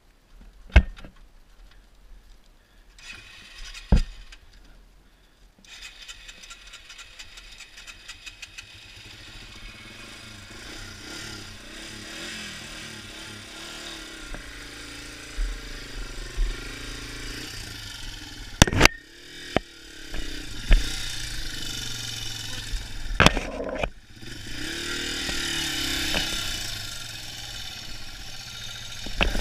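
Yamaha TW200's single-cylinder engine starting up about six seconds in, then running and revving up and down while the bike is worked up steep slickrock, with several sharp knocks.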